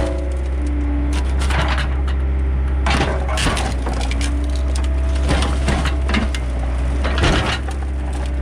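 Excavator bucket and thumb crushing a rusted 1999 Dodge Ram pickup's cab: irregular crunching and cracking of sheet metal and glass over the steady low drone of the excavator's engine.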